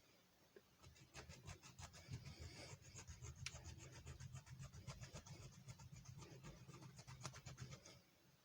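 Faint scratching and quick small metal clicks of hand tools working at a Master Lock M5 padlock, starting about a second in and stopping shortly before the end.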